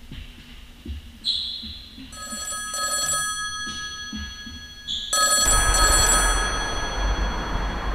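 Desk telephone ringing with an electronic ring tone, sounding in long repeated bursts from about two seconds in.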